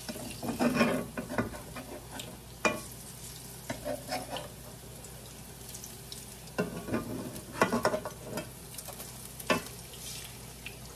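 Banana fritters sizzling in shallow hot oil in a frying pan, with a slotted metal spatula scraping and clicking against the pan in several short bouts as the fritters are turned and pressed.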